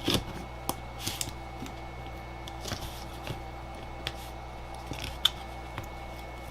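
Irregular light clicks and taps of a laptop battery pack's cells and plastic casing being handled and pressed together, over a steady faint hum.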